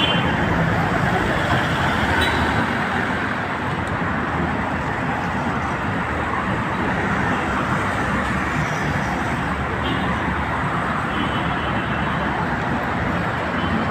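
Steady road traffic noise from cars passing along a busy street, with a short high tone like a horn about eleven seconds in.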